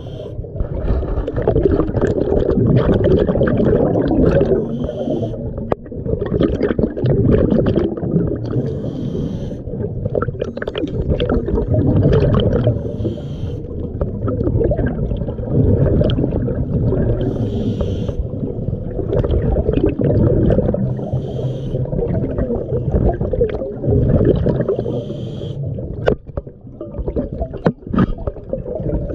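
Scuba diving heard underwater: a steady bubbling, gurgling rumble of exhaled bubbles from the regulator, with a short hiss every four seconds or so.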